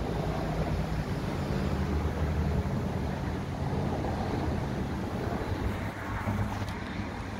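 A 2003 Ford F-150 FX4 pickup's engine idling steadily, with a low, even exhaust note.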